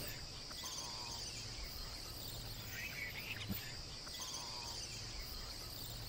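Outdoor ambience with insects droning steadily at a high pitch, and a few short warbling bird calls about a second and four seconds in.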